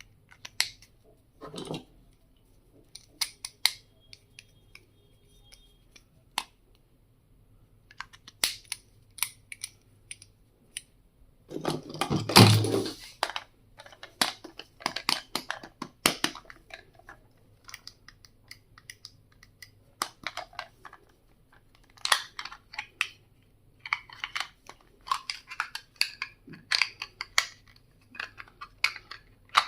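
Stationery items being handled during unboxing: scattered clicks and taps, with one louder rustle about twelve seconds in.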